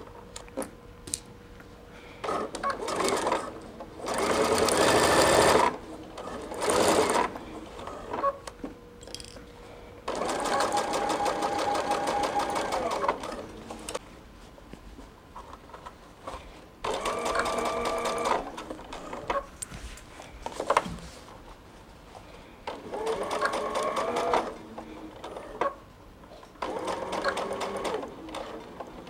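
Sewing machine stitching through the thick layers of a handbag's lining and outer shell at a quarter-inch seam, running in several bursts of one to three seconds and stopping in between.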